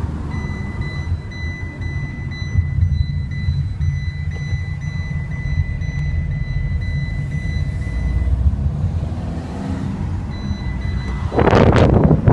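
Quadro4 four-wheeled scooter's engine running with a steady low rumble, under a thin, steady high-pitched tone that stops about eight seconds in. Near the end a loud rush of noise rises over it.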